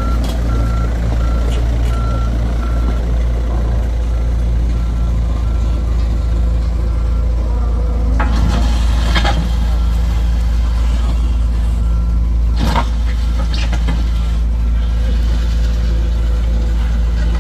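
A heavy vehicle's reversing alarm beeps in a regular series. It stops and starts in stretches over the low, steady running of a heavy engine. A few brief louder sounds come about halfway through.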